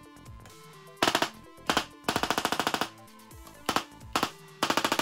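Handheld Tesla coil spark gun discharging into the air: sharp electric cracks, some single and some in rapid rattling trains lasting nearly a second.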